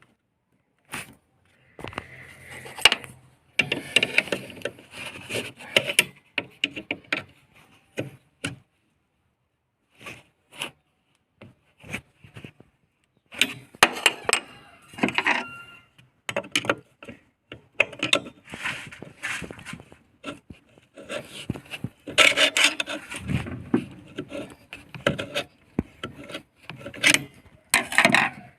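Irregular rubbing, scraping and clicking as a car's dashboard parts are handled and fitted, in clusters with short quiet pauses.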